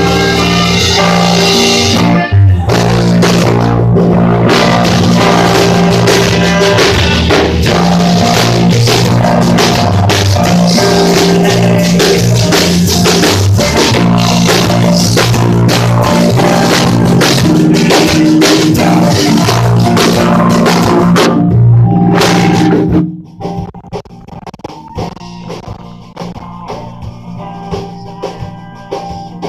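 Live rock band with electric guitars and drum kit playing loud. About three-quarters through, the full band drops out suddenly to a much quieter, sparser passage.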